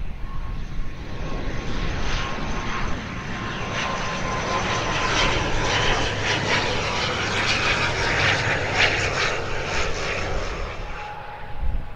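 ATR 72-600 twin turboprop on final approach, its Pratt & Whitney PW127 engines and propellers droning as it flies past. The sound builds to its loudest towards the end, then fades, and a steady whine drops slightly in pitch as the aircraft goes by.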